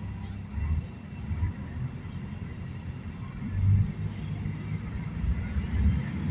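City bus running with a steady low rumble and a few heavier low thuds. A thin high whine sounds over it for the first second and a half.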